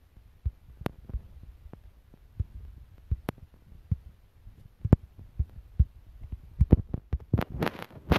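Handling noise from a phone being carried and moved while filming: irregular dull thumps with a few sharp knocks, coming thicker and louder near the end.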